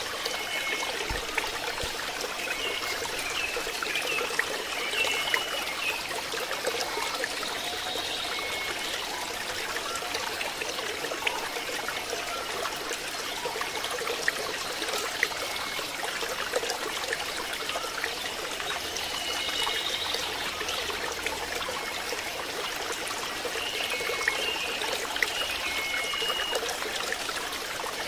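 Water trickling and splashing steadily into a pond, with a few short high chirps now and then.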